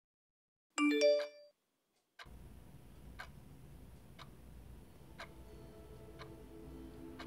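Smartphone notification chime, a few quick notes rising in pitch, about a second in. Then a clock ticking once a second over faint room noise.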